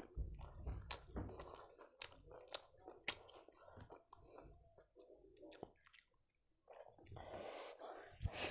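A person chewing food close to the microphone, with many small wet clicks and soft crunches. It goes almost quiet for a moment about six seconds in, then comes a louder, wet stretch as the next handful goes into the mouth near the end.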